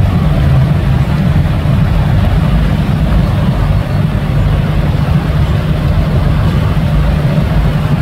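Log flume ride running: a steady loud low machine rumble with rushing water, from the ride's pumps and water flowing through the trough.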